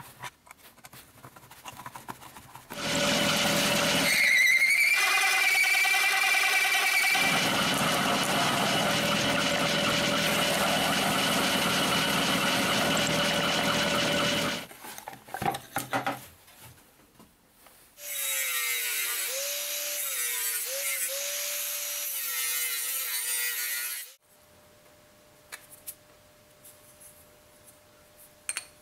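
Drill press driving a hole saw through a steel plate: a steady cutting noise with a brief high squeal early in the cut, stopping suddenly about 15 seconds in. A second run of cutting follows from about 18 to 24 seconds, with a wavering whine.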